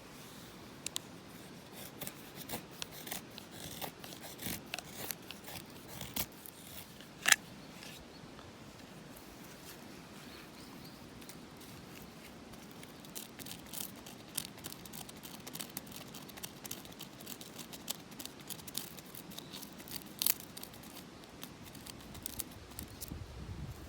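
Knife shaving thin curls down a stick to make a feather stick: a run of short, sharp scraping strokes at an uneven pace, with a louder knock about seven seconds in and a pause of a few seconds after it.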